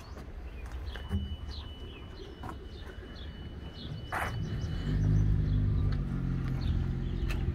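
Birds chirping with short repeated calls, and about two-thirds of the way through a low, steady engine drone comes in and becomes the loudest sound.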